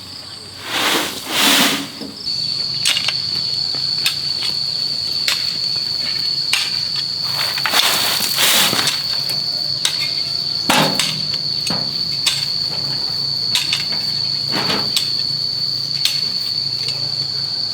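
Steady high-pitched insect drone, with irregular knocks and longer scraping strokes from hand tools at work every second or two.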